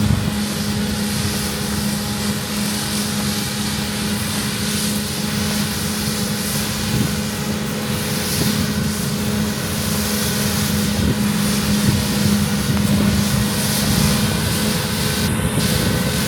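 Large diesel harvest machinery running steadily: a constant low engine drone under a broad mechanical rush, with no change in pace.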